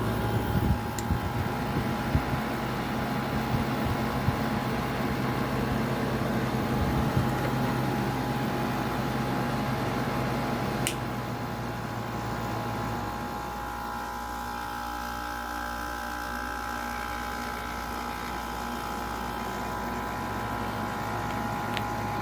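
General Electric 5,150 BTU window air conditioner running with its compressor and fan on: a steady hum with several steady tones, which the owner thinks might have a lubrication issue. The low hum drops away about thirteen seconds in and comes back near the end, with a single sharp click about eleven seconds in.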